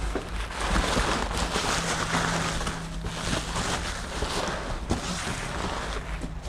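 Cardboard, plastic wrap and foil bubble insulation rustling and crinkling as packing is pulled out of a box by hand, with a faint steady low hum underneath.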